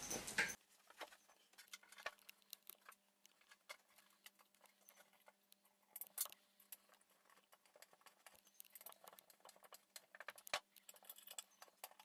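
Faint small clicks and scrapes of a black screw being threaded by hand and turned with an Allen key into a Dobsonian telescope base panel, with a sharper click about halfway through and another near the end.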